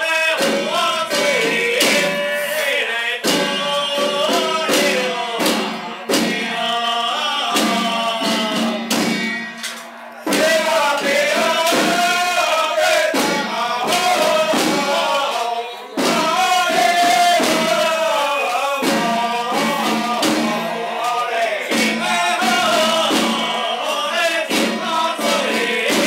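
Taiwanese xiaofa ritual troupe of men chanting a Taoist invocation together, with small hand drums beaten along, opening the eye-opening consecration of a deity statue. The chant drops away briefly twice, about ten and sixteen seconds in.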